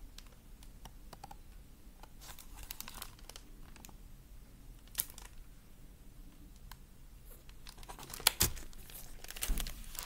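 Paper rustling and crinkling from a hardcover picture book being held up and moved, with scattered small clicks and a louder knock near the end as the book is handled.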